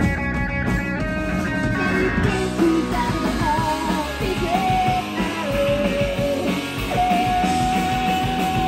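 Live punk rock band playing loud: electric guitar, bass guitar and drum kit, with a woman singing from about three seconds in and holding one long note near the end.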